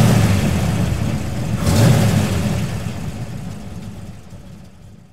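Sound effects for an animated logo: a deep rumbling hit at the start and a second swelling hit about two seconds in, then a long fade-out.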